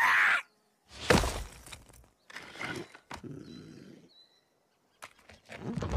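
Handling noises from a plastic action figure: three short knocks and rustles, each fading within a second, with quiet gaps between.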